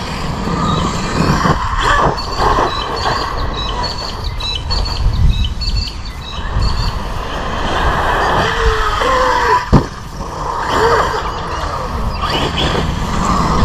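Large Arrma brushless RC car driving hard: the motor's high whine rises and falls with the throttle over the rumble of the tyres on grass and dirt. There is a sharp knock about ten seconds in, as from a landing or hit.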